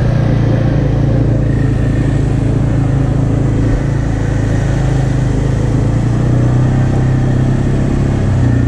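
ATV engine running steadily at trail-riding speed, a constant low hum with rushing noise over it.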